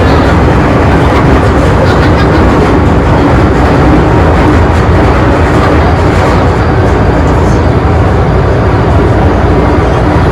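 MTR Island Line M-train (Metro-Cammell electric multiple unit) running at speed, heard from inside the car as a loud, steady rumble of wheels on rails.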